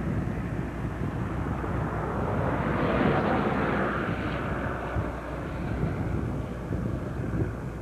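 Aircraft passing overhead: a rushing noise that swells about two seconds in and fades away by about five seconds, over a steady rumble of wind on the microphone.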